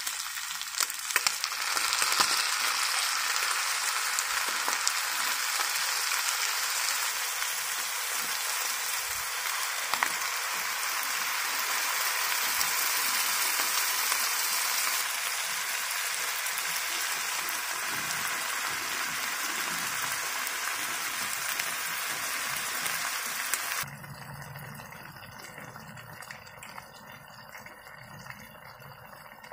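Ground beef and potato chunks frying in a pot: a steady sizzle with scattered knocks of a wooden spoon stirring. About three quarters of the way through, the sizzle cuts off sharply, leaving a much quieter, lower sound.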